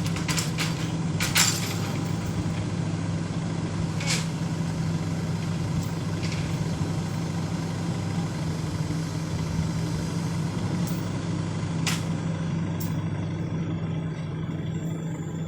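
An engine running steadily with a low hum, and a few sharp knocks or clicks over it.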